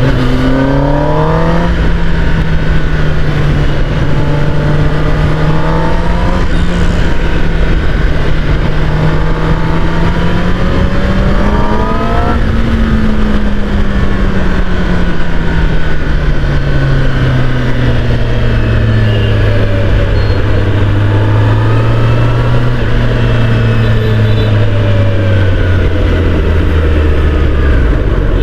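Kawasaki ZX10R inline-four sportbike engine pulling up through the gears, with quick upshifts about 2, 6½ and 12 seconds in. It then rolls off the throttle and slows, the engine note falling steadily until it is low near the end.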